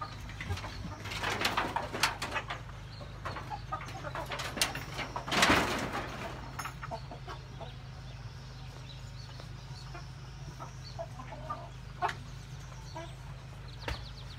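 A flock of white broiler chickens clucking and calling in scattered short bursts, with a louder outburst about five seconds in.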